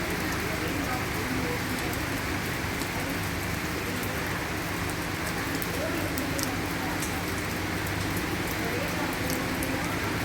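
Steady rain falling, with scattered individual drops ticking sharply on a nearby surface over an even wash of noise and a faint low hum.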